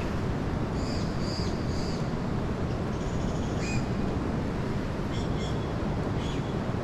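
Steady low rushing noise, with short high bird chirps several times over it.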